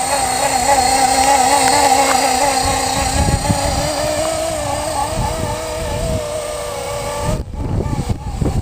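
Electric Blade SR RC helicopter in flight: a steady whine from its motor and rotor that wavers in pitch as it holds against gusty wind, with wind buffeting the microphone as low rumbles that grow after a few seconds. The sound briefly cuts out twice near the end.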